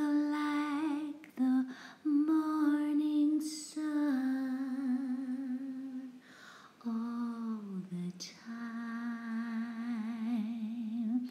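A woman humming a slow, wordless melody in long held notes with vibrato, broken by a few short pauses, with one note sliding down in pitch about two-thirds of the way through.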